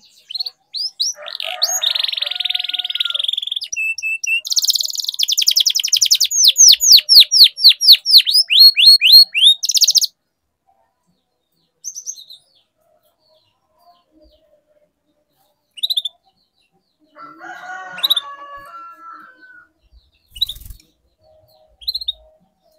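Domestic canary singing: a long burst of song that ends in a fast trill of repeated rising notes about ten seconds in, then only short scattered chirps.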